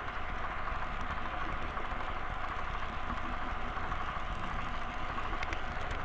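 Model train running along the track under an onboard camera: a steady mechanical rumble and whir of wheels and motor, with a few light clicks near the end.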